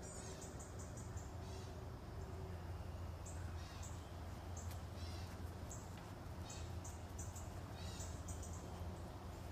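A dog sniffing hard while searching by scent: runs of short, quick sniffs, several in a row, over a steady low hum.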